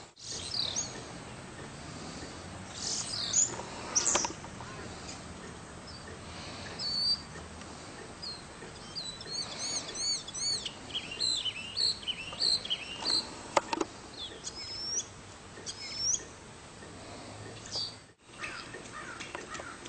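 Birds chirping and singing, with a quick run of high rising-and-falling notes near the middle and a few short sharp calls scattered through.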